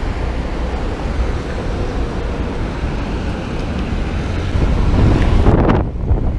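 Wind rushing over the microphone of a camera on a moving bicycle: a loud, steady low rumble with hiss. The hiss drops away abruptly near the end.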